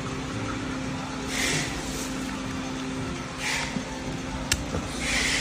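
A sharp click about four and a half seconds in as a RAM module is pressed into a motherboard's memory slot. Under it runs a steady machine hum, with short hissing rushes about every two seconds.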